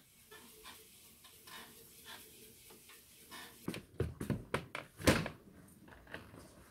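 Footsteps and knocks on a wooden floor as a person in sneakers walks, the loudest thud about five seconds in; before that, only faint light ticking.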